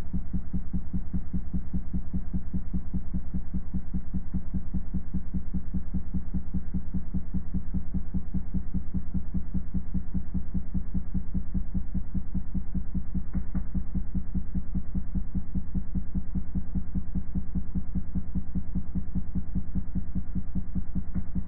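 Low-frequency tone played through the speaker that vibrates the water droplet: a steady low hum with a fast, even pulse, unchanged throughout. It is the resonant frequency that drives the droplet into a six-pointed star pattern.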